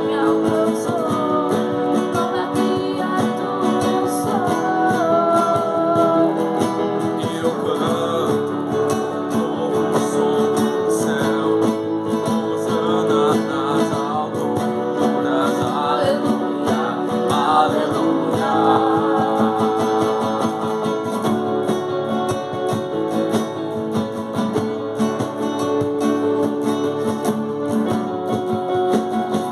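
A worship song: guitar accompaniment playing steadily, with a voice singing the melody in places.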